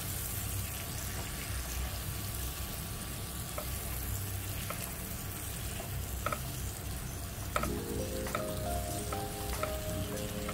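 King oyster mushroom strips sizzling in butter in a frying pan, tossed with tongs that click against the pan now and then.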